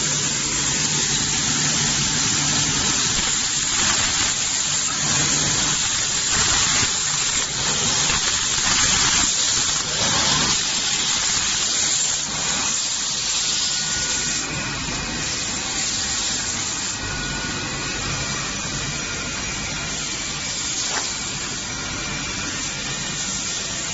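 SD 40C veneer grinding machine running: a loud, steady hiss-like rush of the machine at work. It eases a little about halfway through, and a few faint steady whines come in.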